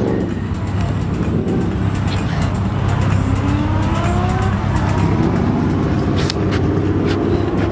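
A car's engine and exhaust running hard under acceleration, a deep steady rumble with the engine note climbing as the car pulls away.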